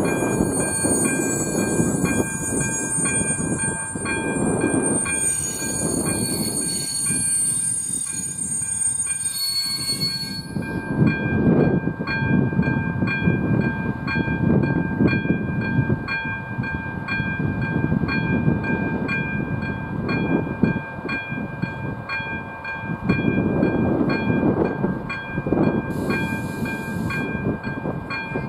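A train runs over the level crossing with heavy rumbling that swells and fades, while the crossing's warning bell rings in even, repeated strokes. A high whine from the train rings for about the first ten seconds, then stops.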